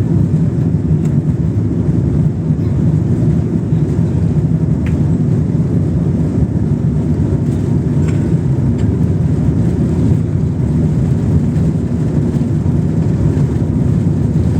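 Airliner cabin noise during takeoff: a steady, loud, low drone of the jet engines and airflow, heard from inside the passenger cabin.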